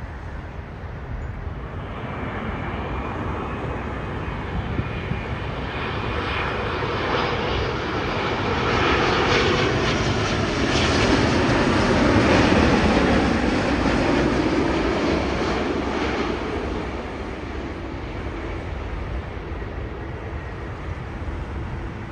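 Engines of a United Airlines twin-engine jet airliner on final approach, a steady roar that swells as it passes close overhead, is loudest about halfway through, then fades as it descends to the runway.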